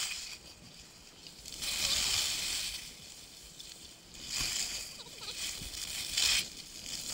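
Skis carving down a groomed slope: a hiss of the edges scraping across packed snow at each turn, coming about every two seconds.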